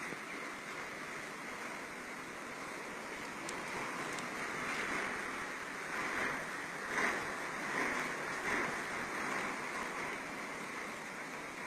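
Typhoon storm noise: a steady rush of wind and surf that swells several times in the second half, as gusts or breaking waves come through.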